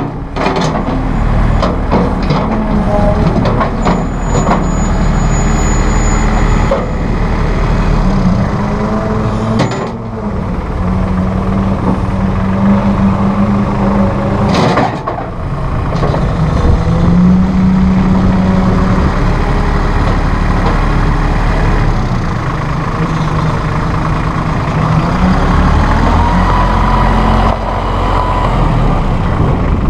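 2005 New Holland TC30 compact tractor's diesel engine running as the tractor drives, its note rising and falling several times. Several sharp clicks and knocks come in the first few seconds, with another knock at about fifteen seconds.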